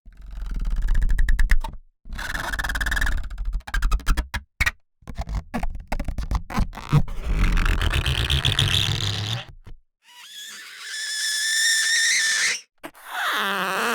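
A run of separate bowed-material sound effects: a cello bow drawn across objects so that they vibrate. The first strokes are low and buzzing, a stuttering chatter of short strokes comes near the middle, and toward the end a high, wavering pitched squeal rings out.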